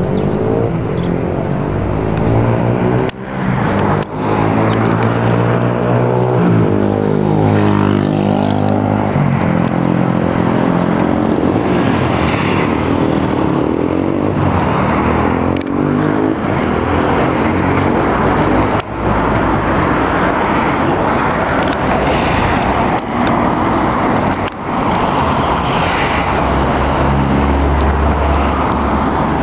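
Engine and road noise heard from inside a moving vehicle, the engine pitch rising and falling as it speeds up and slows down, with a few sharp knocks from bumps.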